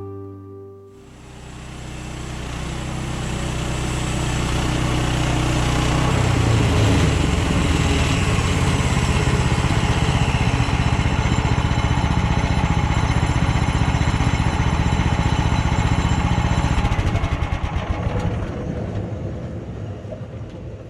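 Small gasoline engine of a Woodland Mills HM130 portable sawmill running, coming in about a second in and building up, steady and rough through the middle as the blade works the log, then fading away near the end.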